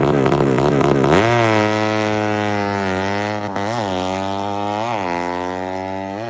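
Suzuki Satria FU single-cylinder four-stroke engine, bored out to 200cc for drag racing, revved with quick, rapid blips. About a second in it jumps up to a higher, steadier speed and holds there, with a few short blips of the throttle.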